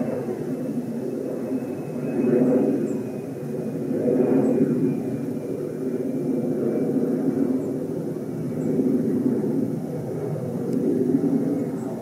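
Low rumble of a distant airplane overhead, swelling and fading every couple of seconds.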